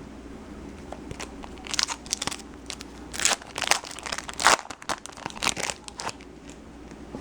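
Foil wrapper of a trading-card pack being torn open and crinkled, an irregular run of crackles for about five seconds.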